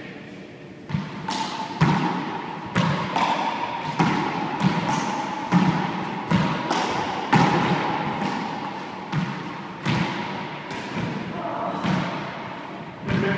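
Rubber handball being struck and hitting the walls and floor of an enclosed handball court: a string of sharp smacks, one or two a second, each ringing off the bare walls.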